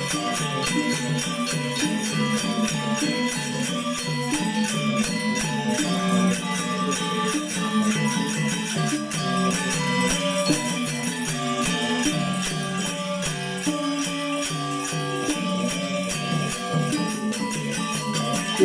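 Balinese gamelan angklung ensemble playing a classic piece: a dense, even stream of struck metallophone notes over a steady low pulse.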